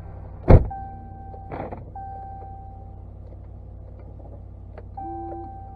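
Dodge pickup truck engine idling just after a cold start, with a sharp knock about half a second in and a few electronic dashboard chime tones coming on and off.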